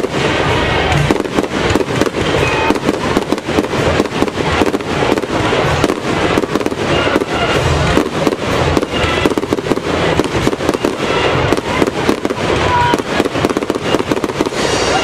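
Aerial fireworks going off in a dense, unbroken barrage of bangs and crackling, many reports a second with no pause.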